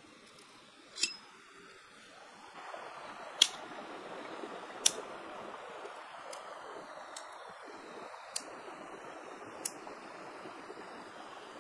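A shallow stream running over pebbles, starting a couple of seconds in. Sharp clicks sound a few times over it, the loudest about a third of the way through.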